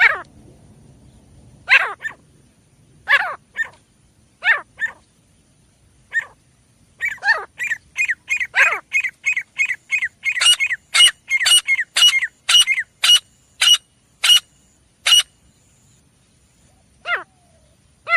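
Grey francolin calling: short, sharp, high calls that sweep downward, at first a second or so apart, then a fast run of about two to three calls a second from about seven seconds in, slowing again near the end.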